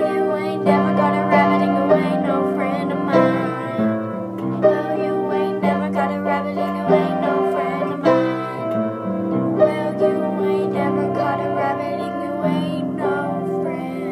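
Instrumental music: held, layered notes whose chords change about once a second, with a plucked-string and keyboard sound.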